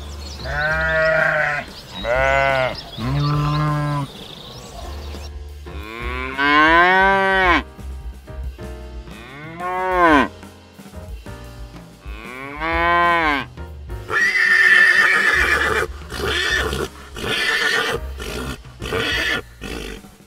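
About six bleating calls, each roughly a second long, rising then falling in pitch, over background music. Noisier, less tuneful sounds follow in the last third.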